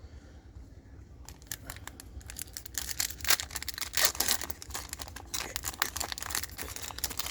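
A trading card pack wrapper being crinkled and torn open by hand: a dense run of crackling and ripping that starts about a second in, louder in the middle.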